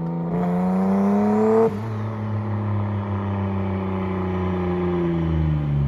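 Turbocharged Mazda MX-6 running on E85 accelerating, its engine pitch climbing steadily. About a second and a half in, the revs drop suddenly, and the engine runs on at lower revs with its pitch slowly falling.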